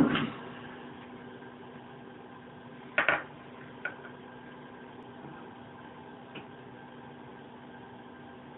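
A few knocks and clicks from plastic brewing gear being handled at a fermenting bucket, the loudest about three seconds in, over a steady machine hum.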